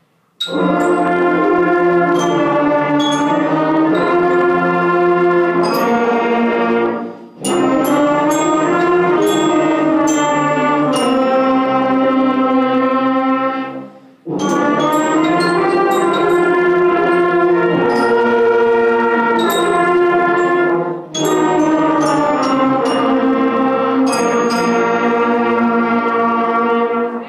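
Beginning school band playing a piece together, sustained chords from the massed wind instruments. It plays in four long phrases of about seven seconds each, with short breaks between them about 7, 14 and 21 seconds in.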